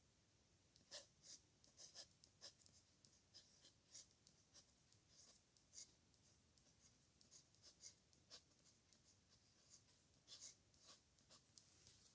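Pen nib scratching across paper in quick, short, irregular strokes of handwriting, faint. It starts about a second in.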